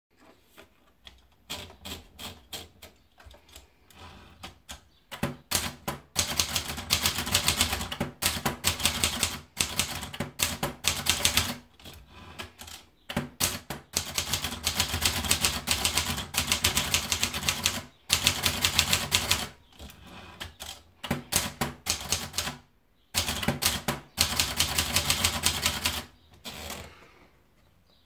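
Triumph Tippa portable manual typewriter. Softer scattered clicks come first as a sheet of paper is wound into the platen. Then about five seconds in comes the clatter of typing, fast runs of key strikes in bursts broken by short pauses.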